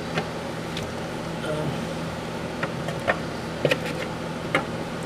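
Scattered light clicks and knocks as the Saturn's transmission side cover is worked into place by hand, over a steady hum.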